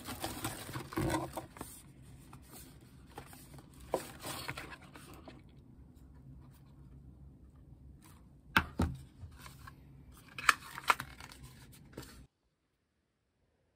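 Paper and plastic packaging rustling and crinkling as a parcel is unpacked by hand, the honeycomb kraft paper wrap crackling as it is pulled about. A few sharper crackles come in the second half, and the sound cuts off abruptly near the end.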